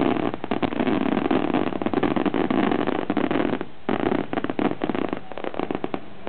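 Fireworks going off in a dense, rapid barrage of bangs and crackles, with a brief break just before four seconds in and thinning out near the end.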